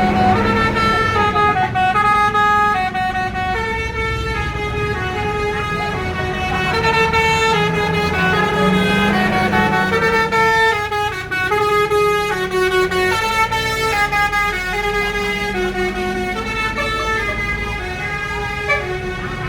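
Indonesian bus "telolet" horn, a multi-tone musical air horn, playing a quick tune of stepped notes over and over, with a low engine rumble beneath.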